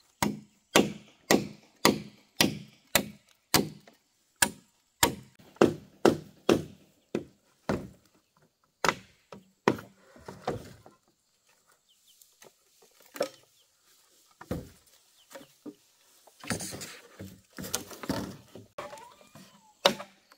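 Repeated chopping strikes on bamboo, about two a second for the first eight seconds, then slowing to a few scattered blows with pauses between them.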